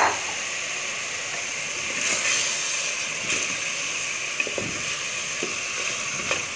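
Frozen mutton pieces sizzling in hot ghee in a pressure cooker, with a steady hiss. A wooden spatula stirs the meat and knocks against the pot a few times.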